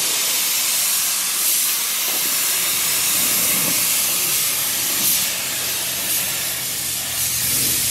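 Compressed-air siphon-feed spray gun hissing steadily as it sprays a coat of primer onto a truck's rocker panel.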